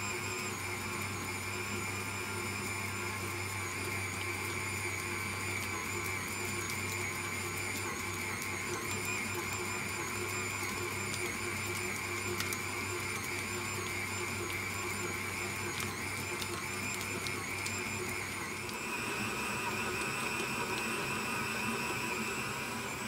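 Kenwood Cooking Chef stand mixer running steadily at speed 2, its dough hook kneading an enriched viennoise dough with the butter worked in; the motor gives a steady whine. Near the end the whine rises a little and the dough slaps against the sides of the bowl, the sign that it is fully kneaded.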